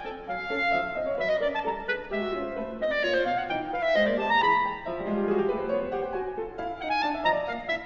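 Clarinet playing a quick, jumping line of short notes with piano accompaniment.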